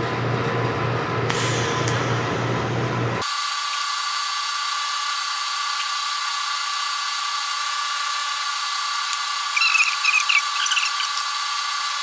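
TIG welding on a steel tube: a low hum for about three seconds, then a steady high-pitched hiss with a thin whine from the arc, with a few short chirps about ten seconds in.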